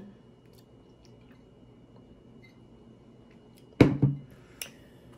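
Quiet room tone with a faint steady high tone, broken about four seconds in by one sharp click or knock and a smaller click shortly after.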